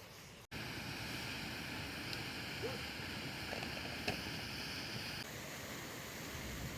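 Steady rush of flowing water from a small stream or waterfall. It starts abruptly after a brief dropout about half a second in, turns slightly softer about five seconds in, and has a few faint clicks over it.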